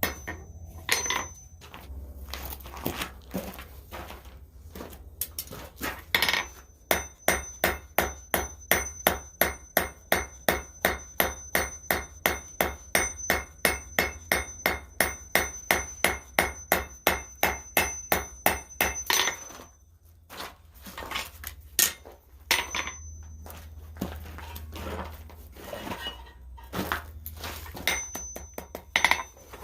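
Hand hammer striking steel on an anvil while a hairstick is forged. A steady run of ringing blows, about three a second, lasts some thirteen seconds, with scattered lighter taps and knocks before and after it.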